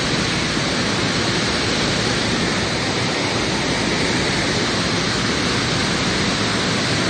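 Muddy floodwater of a swollen river rushing past in a steady, loud torrent.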